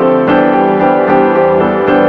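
Background piano music, with new notes and chords coming in every half second or so.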